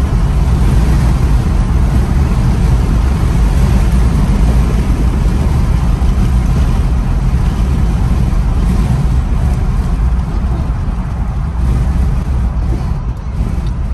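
Steady rumble of road and engine noise inside a moving car's cabin, with no clear changes.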